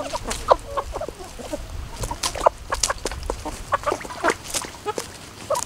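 A flock of asil gamefowl chickens clucking in short, scattered calls while foraging, with sharp clicks and rustles of pecking and scratching in dry leaves.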